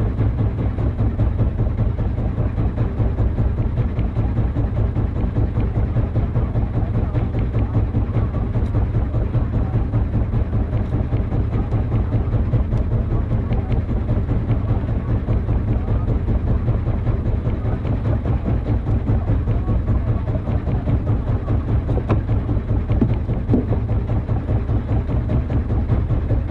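A boat engine idling steadily, a fast, even low throb that runs on without change.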